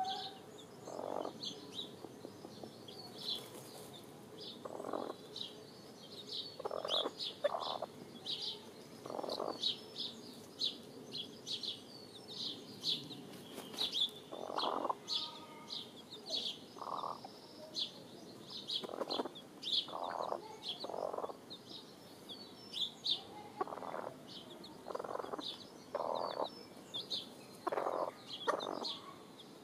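Hen and chick dust-bathing in loose soil: irregular short, soft low sounds about once a second, over frequent high chirps.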